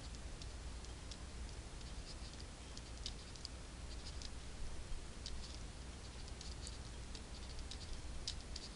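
Faint, irregular light clicks and ticks from the input device used to hand-write words on screen, over a steady low electrical hum.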